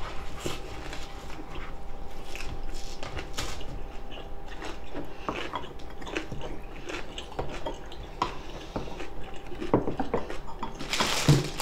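Mealtime sounds: chopsticks and tableware clicking against plates, chewing, and milk poured from a carton into a glass. A louder rustle comes in near the end.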